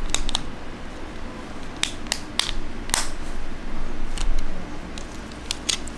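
Small sharp plastic clicks and snaps from a Tesla Model S key fob's casing as the battery cover is pressed back on by hand: about eight clicks at uneven intervals, over a low rumble.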